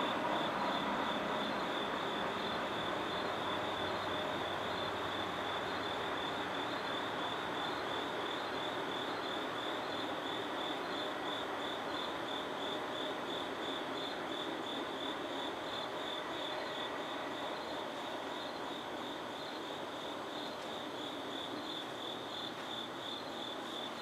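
Crickets trilling steadily in a high, continuous chorus with a faint regular pulse a little more than once a second, over a low distant rumble that slowly fades away.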